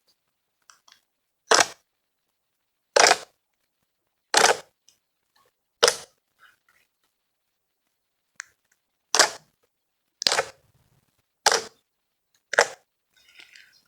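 Fluffy milk slime being worked by hand, giving eight loud, sharp popping squelches about every second and a half, with a pause midway.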